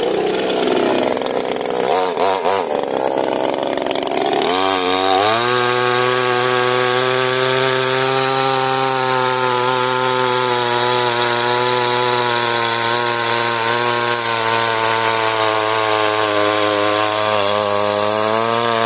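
A two-stroke petrol chainsaw runs low and unevenly at first. About four and a half seconds in it is throttled up sharply and held at high, steady revs while the chain cuts through a log.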